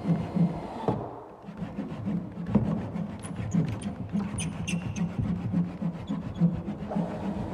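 Hand saw cutting along the edge of a plywood panel, in rhythmic back-and-forth strokes.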